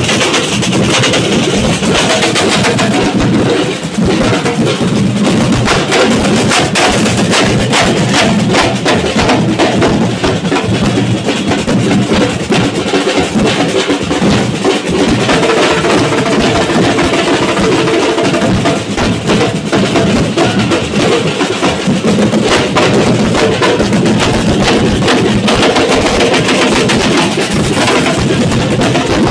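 Street drum band of snare drums played with sticks, beating a fast, continuous rhythm.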